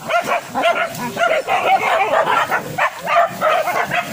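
Pig-hunting dogs barking and yelping in the undergrowth, a quick run of high yaps about three a second.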